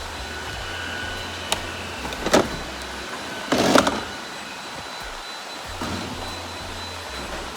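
Robot vacuum running with a steady motor whir, broken by a few brief knocks and one longer, louder clatter about three and a half seconds in.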